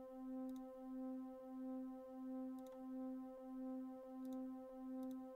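Looped synth-gong sample playing back from the ProTracker sample editor: a steady low droning tone with overtones that swells and fades about one and a half times a second as the loop repeats. A few faint double clicks come from the mouse adjusting the loop length.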